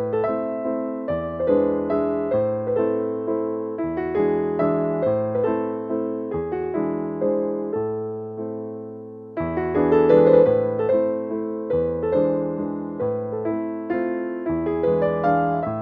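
Background piano music: a gentle tune of struck notes that ring and fade, with a new phrase entering strongly about nine seconds in.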